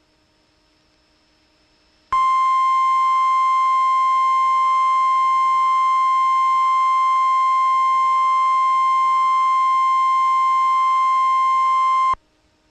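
The warning alarm tone of an emergency weather alert: one steady, loud, high tone about 1050 Hz, typical of NOAA Weather Radio. It starts suddenly about two seconds in, holds for about ten seconds and cuts off sharply. It signals that a new warning is about to be read.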